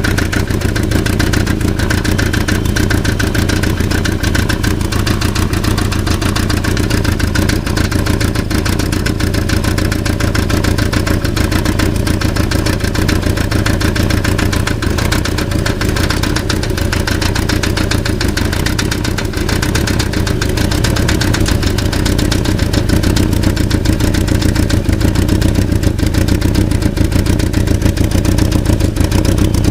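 Volkswagen Passat engine running steadily with a fast, continuous metallic rattle that follows the engine, getting slightly louder about two-thirds of the way in. The uploader traces the rattle to a loose catalytic converter.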